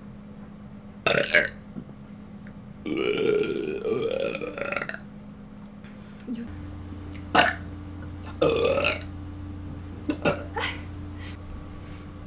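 A person letting out a series of big, deep burps: a short one about a second in, a long drawn-out burp from about three to five seconds in, then several shorter burps in the second half.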